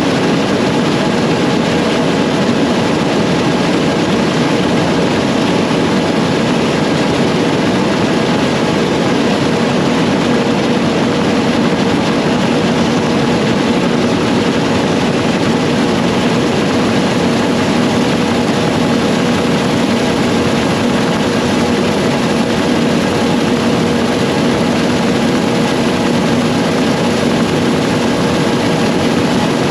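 John Deere S670 combine running steadily under load while harvesting wheat: an even engine and machinery drone with a steady hum that holds without change.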